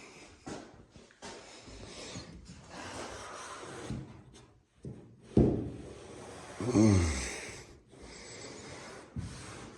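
A person breathing out hard through the nose, with a sudden forceful exhale about five and a half seconds in and a short voiced sigh that falls in pitch a second later. Quiet rubbing and handling noises sound in between, from working caulk along the trim.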